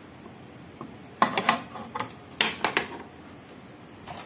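Two short bursts of clicking and clattering, about a second in and again about two and a half seconds in: a circuit board and its wiring being handled and set down in an amplifier's metal chassis.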